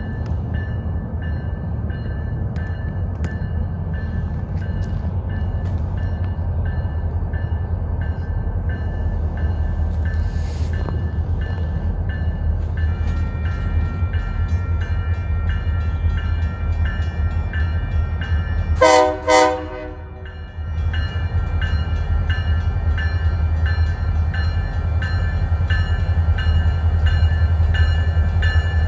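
Union Pacific EMD SD40N and SD40-2 diesel locomotives approaching, a low engine rumble growing slowly louder, with a bell ringing in a steady rhythm. About two-thirds of the way through the horn sounds two short blasts.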